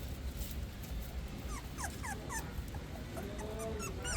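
Newborn puppies squeaking and whimpering: a quick run of short high squeaks starting about a second and a half in, then a longer, lower whine near the end, over a steady low rumble.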